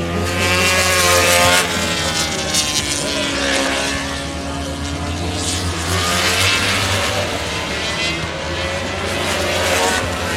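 MotoGP racing motorcycle engines running at high revs as the bikes pass, their pitches gliding up and down, over the steady low drone of a helicopter overhead.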